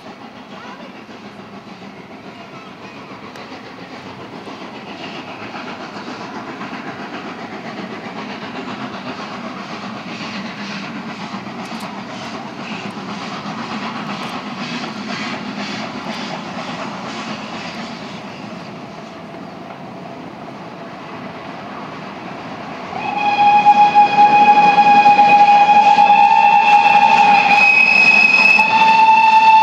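Steam locomotive working uphill with a passenger train, its exhaust beats growing louder as it nears. About three-quarters of the way in, its steam whistle sounds loud and long, held to the end and stepping up slightly in pitch partway through, as the engine runs into a tunnel.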